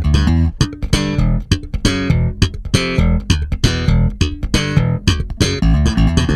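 Electric bass guitar playing a fast, busy line of short notes with sharp, percussive attacks.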